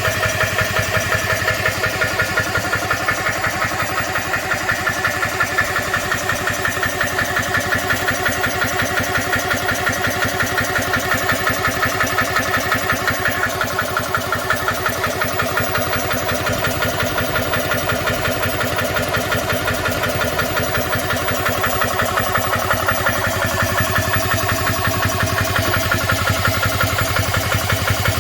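GX CS2 portable oil-free 12V PCP air compressor running steadily with a rapid, even pumping beat as it fills an air gun to high pressure.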